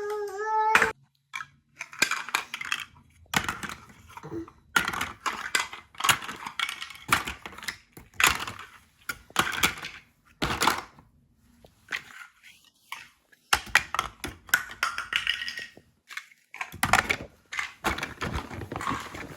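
Kitchen clatter: dishes and cutlery clinking and knocking in a run of irregular sharp clicks and thuds, with a few brief pauses.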